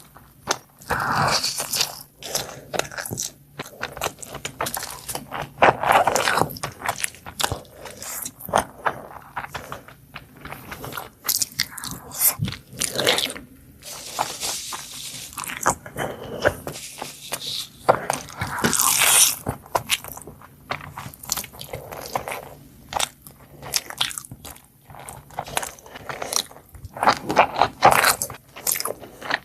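Close-miked eating sounds: irregular crunching and biting of food, with chewing and scraping between bites.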